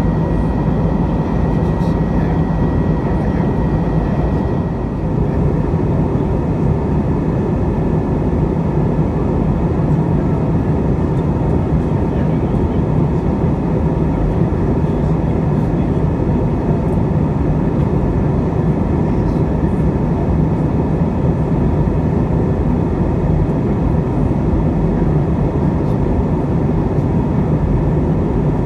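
Steady in-flight cabin noise inside an Airbus A321, a deep drone of the engines and airflow, with a faint high whine that stops about five seconds in.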